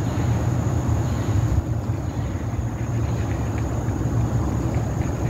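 Steady low outdoor rumble with no distinct events, and a faint thin high steady tone above it.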